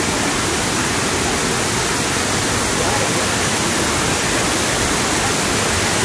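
Waterfall pouring: a steady, loud rush of falling water with no let-up.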